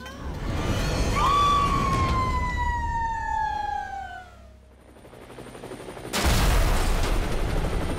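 A long, smoothly falling whistle sound effect lasting about three seconds. About six seconds in, a sudden loud rushing roar of helicopter rotor noise cuts in and keeps going.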